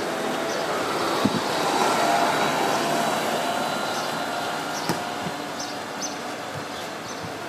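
A car driving past on a street, its engine and tyres loudest about two seconds in and then slowly fading as it moves away. Two sharp clicks stand out, one early and one about five seconds in.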